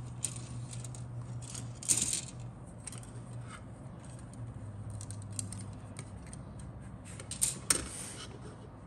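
Injection-moulded plastic model-kit sprue handled and set down on a cutting mat: a run of light plastic clicks and clatter, with louder knocks about two seconds in and near the end. A low steady hum sits underneath.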